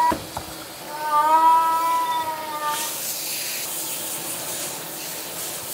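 A cat in the bath gives one long, drawn-out meow, then a handheld shower sprayer starts hissing a steady spray of water a little before the midpoint and runs on.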